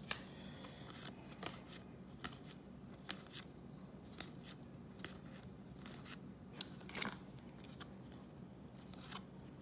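Topps baseball cards being flipped through by hand, one after another: about a dozen faint, irregular clicks and slides of card stock over a low steady hum.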